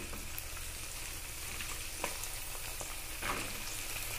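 Freshly cut flat beans frying in hot mustard oil in a kadai with chicken skin and onions: a steady sizzle, with a few faint knocks about two and three seconds in.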